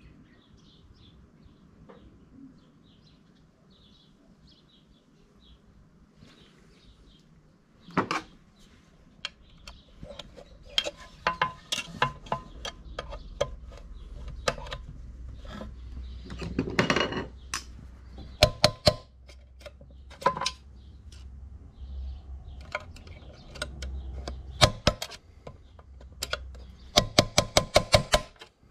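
Metal clinks and knocks from tools striking the sewing machine's internal metal parts as a shaft is worked loose, irregular strikes starting about eight seconds in, ending in a quick run of about ten sharp taps.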